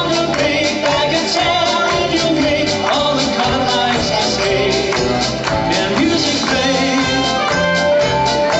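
Live band music: a male vocalist singing over electric guitar and drums with a steady beat.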